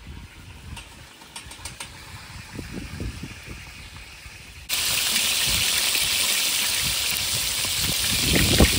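A low rumble with a few faint clicks, then, about halfway through, the loud steady sizzle of chicken wings deep-frying in hot oil in a stainless steel pot begins abruptly, with a low bump just before the end.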